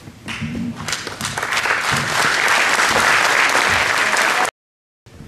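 Audience applauding, the clapping swelling over the first second and holding strong, then cutting off suddenly about four and a half seconds in before returning more softly near the end.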